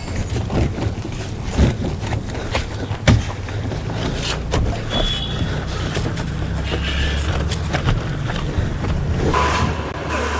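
High-pressure car-wash pump running with a steady low hum, water spraying, and scattered sharp knocks throughout.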